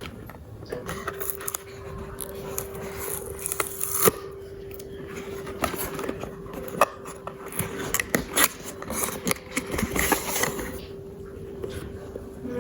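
Clicks, knocks and scraping of small objects being handled, over a steady hum.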